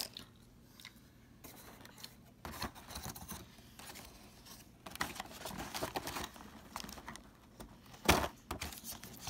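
Small plastic Breyer horse figurines and accessories being handled and set down on a paper-covered table: scattered light clicks, taps and paper rustling, with the loudest knock about 8 seconds in.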